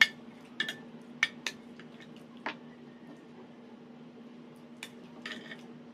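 Cutlery clinking against plates during a meal: about eight sharp, ringing clinks, the first and loudest right at the start, then a pause of a couple of seconds before two more near the end.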